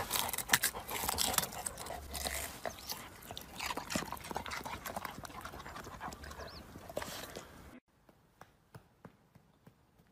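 A dog digging and nosing in loose garden soil around a buried white root vegetable: scraping and rustling dirt with many small knocks and clicks, cutting off abruptly about eight seconds in.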